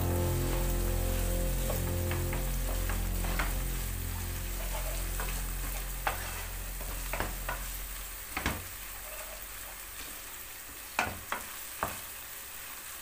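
Ground meat and onions with tomato and pepper paste sizzling in a nonstick frying pan as a wooden spoon stirs them, with scrapes and sharp knocks of the spoon against the pan, several of them in the second half.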